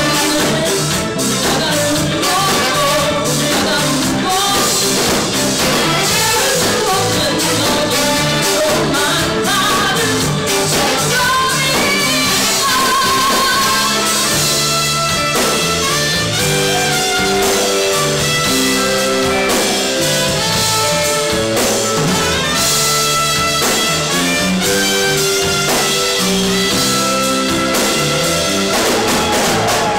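Live band music: a woman singing over electric guitar and drum kit.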